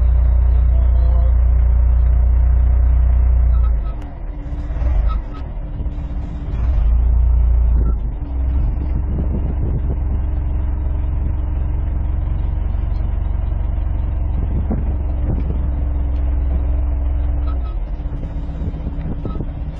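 Loader's diesel engine heard from inside the cab, running with a deep drone that eases off and turns uneven about four seconds in, then picks up again. A steady whine runs over the engine from about eight seconds until shortly before the end.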